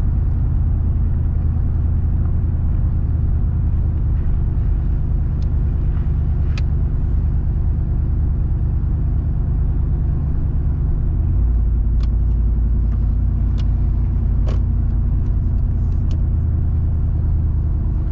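Steady low rumble of a motor vehicle driving, its pitch shifting about eleven seconds in, with a few faint clicks.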